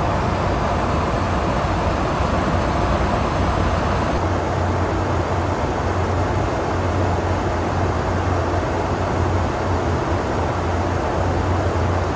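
Steady in-flight drone inside a KC-135 Stratotanker's boom pod: a constant low hum with the rush of airflow over it. The high hiss softens a little about four seconds in.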